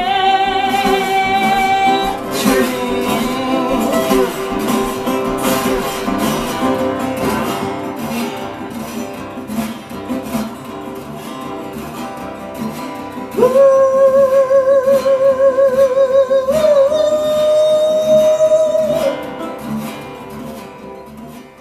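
Metal-bodied resonator guitar played in a blues train-song rhythm, with wordless held sung notes over it: a short one at the start, then a louder one, wavering with vibrato, through the second half before it fades.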